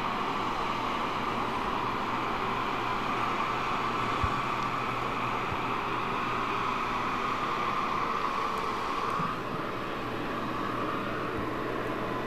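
Steady rushing engine noise from jet aircraft and ground equipment on an airport ramp, with a mid-pitched hiss that eases off about nine seconds in.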